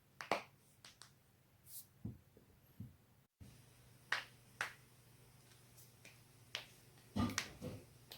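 Human joints cracking: a run of short, sharp pops at irregular intervals, with a quick cluster of several pops near the end and a brief dropout of all sound a little over three seconds in.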